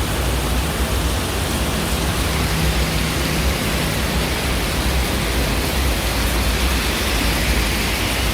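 Heavy monsoon rain pouring steadily, an even hiss with a low rumble underneath.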